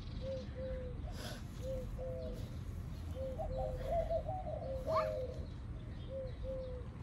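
A dove cooing repeatedly: short, low notes that fall slightly, coming in runs of two or three, over a steady low background rumble.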